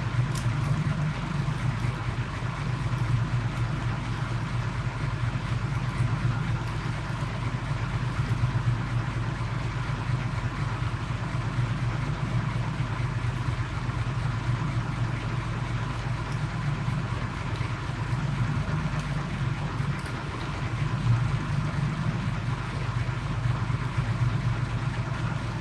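Small boat's engine running steadily under way, a constant low drone with no change in speed.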